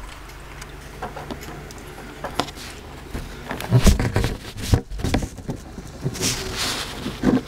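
Handling noises at a house window: scattered taps and scrapes as the blinds and window are moved, with a few heavier thumps about four seconds in and a short rustle a little after six seconds.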